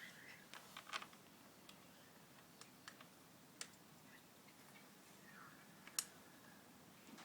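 Faint scattered clicks and light taps from BMX crank parts and tools being handled, about half a dozen, the sharpest about six seconds in, over near silence.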